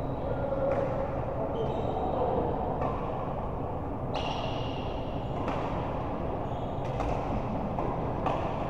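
A rally in a sports hall: sharp racket hits about every one to one and a half seconds, with short high shoe squeaks on the court floor, over a steady hall murmur.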